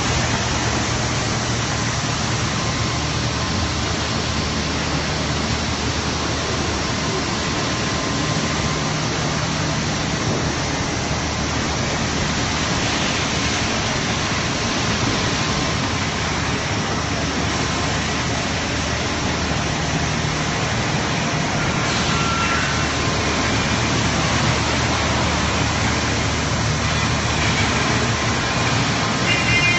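Industrial plastics-processing machinery running in a factory hall: a loud, steady rushing noise with a constant low hum underneath.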